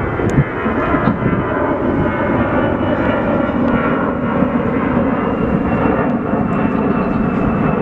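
Jet airliner engines running, a steady loud noise with no breaks.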